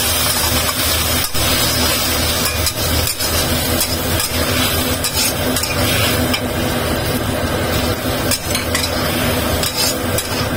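Shallots sizzling in a wok as a spatula stirs and scrapes them through the sauce, with a few sharp knocks of the spatula against the pan.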